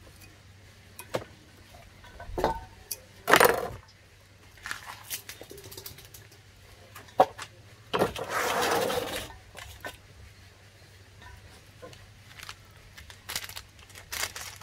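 Food-prep handling noises: scattered clinks and knocks of utensils and containers, a sharp clatter about three and a half seconds in, and a longer scraping, rustling noise lasting about a second and a half from around eight seconds.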